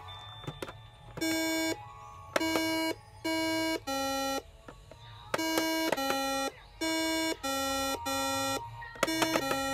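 A Simon electronic memory game sounding its colour tones: about ten short beeps of roughly half a second each at two or three different pitches, first a group of four, then a pause, then a longer run, with a few sharp button clicks near the start and near the end.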